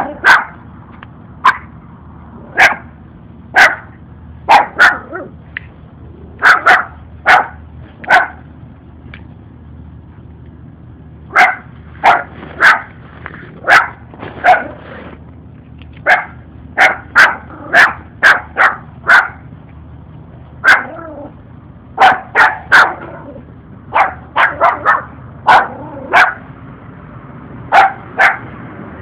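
A puppy barking over and over in short, sharp barks that come in irregular bunches, with a pause of a few seconds about a third of the way in.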